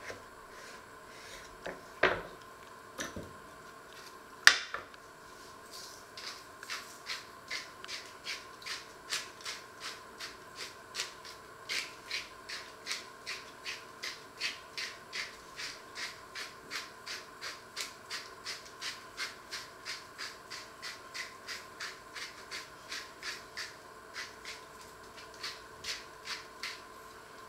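Hand-twisted spice mill grinding over a tray of raw potato wedges, a steady run of short raspy grinding strokes about two a second. Before it, two sharp knocks, the second the loudest, from the knife on the wooden cutting board.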